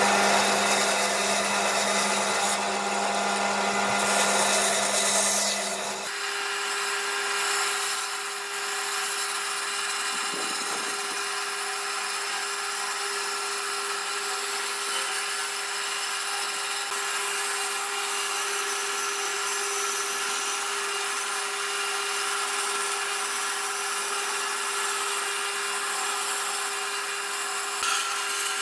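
Bandsaw running and cutting a curve through a thick pine block, a steady hum under the sound of the blade in the wood. The hum jumps abruptly to a higher pitch about six seconds in.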